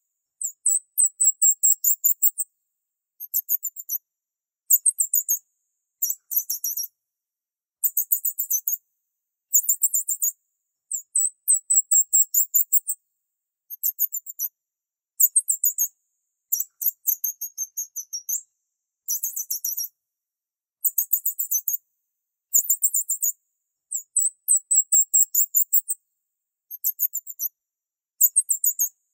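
High-pitched chirping trills in short bursts, each a rapid run of pulses, repeating about every second or two with silent gaps between. It is nothing like a pigeon's low coo.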